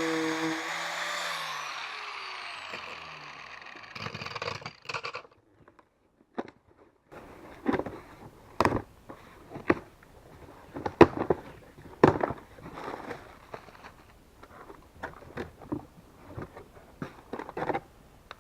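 A steady pitched tone, likely music, slides down in pitch and fades over the first few seconds. After a brief near-silence, a shipping package is opened and its contents handled, with irregular crinkling, rustling and sharp clicks.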